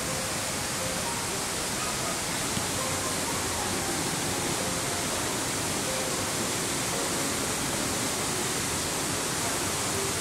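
Steady, even rush of a small artificial waterfall and stream.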